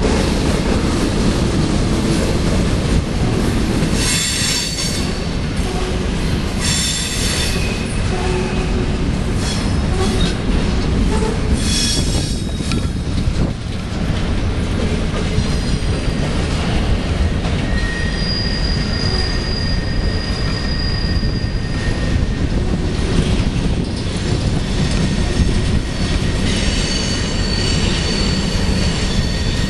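Freight train of autorack cars rolling past over a bridge: a steady low rumble of wheels on rail, with the wheels squealing. There are several short squeals in the first half, then a long, steady, high squeal in the middle and another near the end.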